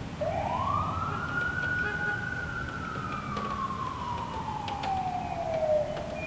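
An emergency vehicle's siren sounding one long wail: the pitch climbs quickly, holds briefly at the top, then falls slowly over about four seconds.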